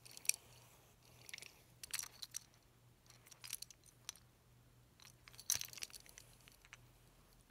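Small wooden toy hand car being handled and turned in the fingers: short clusters of light clicks and taps, several times.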